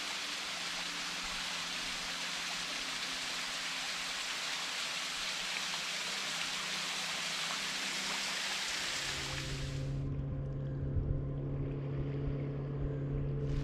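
Small waterfall splashing down a rock face into the sea loch: a steady hiss of falling water. About two-thirds of the way through it cuts off suddenly and a steady low hum takes over.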